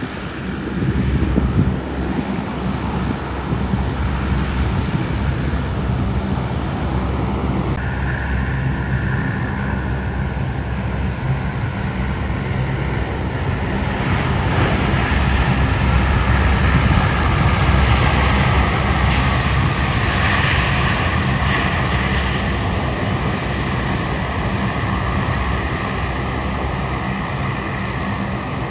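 Airliner engines running over a steady low rumble. A whine comes in about a quarter of the way through, swells to its loudest around the middle, and sinks slowly in pitch as the aircraft passes.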